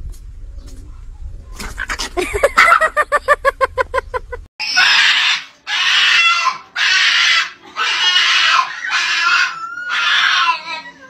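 A small dog makes a fast run of short, high yips, then a Boston terrier screams and squeals in rough, pig-like cries, each nearly a second long, about one a second, distressed at its owner going out without it.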